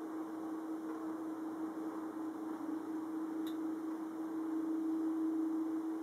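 Aircraft taking off from an airport about 2 km away: a steady distant drone with a hum, swelling slightly toward the end.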